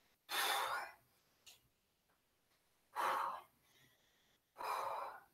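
A woman breathing out hard, three heavy breaths about a second and a half apart, winded from exercise.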